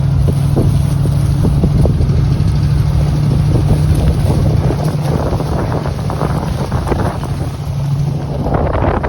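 A machine running steadily with a low drone, with irregular crackling and some wind noise on the microphone over it.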